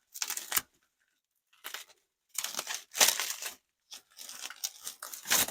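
Packaging being handled and unwrapped: crinkling and tearing of wrapping material in several short bursts, the longest and loudest about two and a half to three and a half seconds in.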